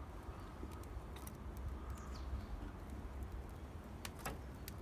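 Wood fire crackling, with a handful of scattered sharp pops over a low steady rumble.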